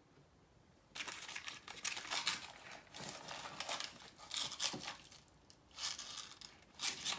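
Baking paper lining a dish crinkling and rustling in repeated bursts from about a second in, with the crunch of baked granola bars being broken and lifted out of it.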